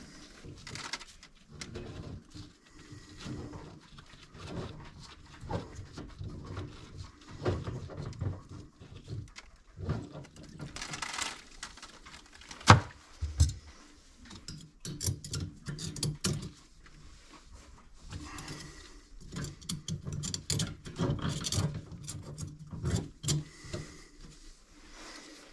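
Hands working on a plastic sink drain trap in a cramped cabinet: irregular rustling of sleeve and gloves with scattered knocks and clicks on the pipe fittings, and one sharp knock about halfway through.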